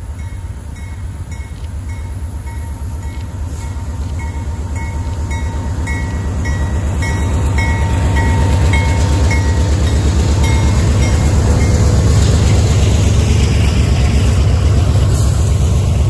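Diesel freight train approaching and passing, led by a BC Rail GE C44-9W locomotive and a CN unit; the diesels' low engine rumble grows steadily louder and is loudest once the locomotives draw level about eight seconds in. A high bell dings steadily over it and stops about ten seconds in.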